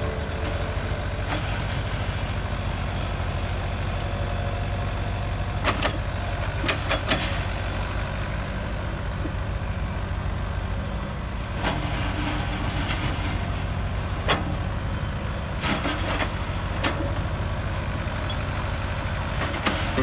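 Hydraulic excavator's diesel engine running steadily under load as it scoops gravel and dumps it into a steel dump truck bed, with sharp clanks now and then from the bucket and falling stone.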